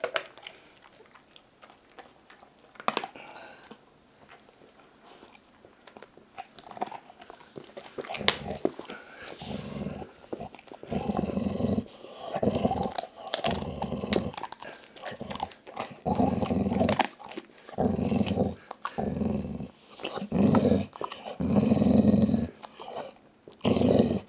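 A dog gnawing on a bone, with a few sharp clicks, then from about nine seconds in a run of low growls, each about a second long, coming one after another with short pauses. The growls are aimed at the person beside it.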